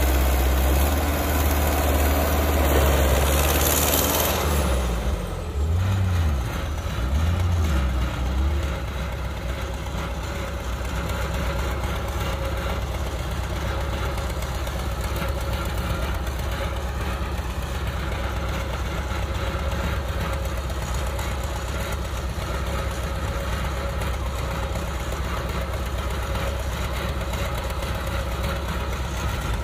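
Caterpillar tracked excavator's diesel engine running hard under load while the bucket dumps soil, rising and falling twice, then settling into a steady, quieter idle after about nine seconds.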